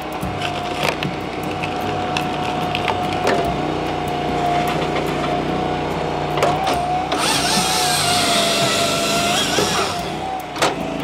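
Firewood processor running with a steady machine whine, splitting pine with several sharp cracks. From about seven seconds in to about ten seconds, its chainsaw bar cuts through a pine log; this is the loudest part, with a wavering whine over the noise.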